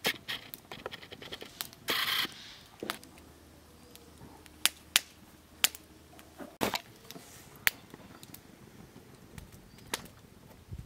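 Scattered sharp clicks and light knocks, irregularly spaced, with a brief scrape about two seconds in.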